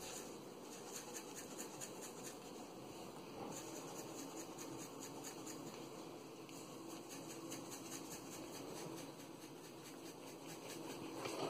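Dried parsley flakes shaken from a spice jar onto raw meat: a run of quick, faint shakes, several a second.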